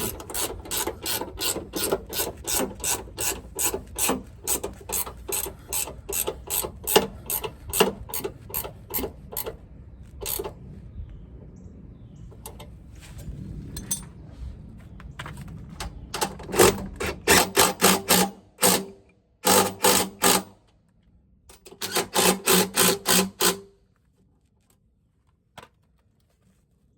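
Ratcheting wrench clicking as a step rail mounting bolt is tightened: an even run of about three clicks a second, then a stretch of fainter rubbing, then three short bursts of quicker clicking with pauses between, stopping shortly before the end.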